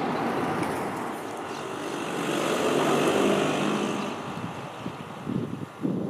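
Fire engine pumper truck driving past with no siren, its engine and tyre noise growing to loudest about three seconds in and then fading as it moves away. Wind buffets the microphone near the end.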